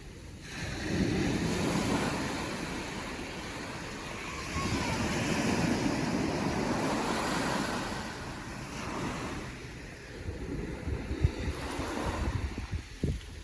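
Ocean waves breaking and washing up the shore in two long swells, with wind buffeting the microphone in low gusty thumps in the last few seconds.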